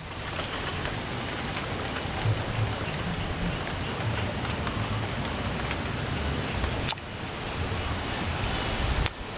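Steady hiss of light rain falling, with one sharp click about seven seconds in.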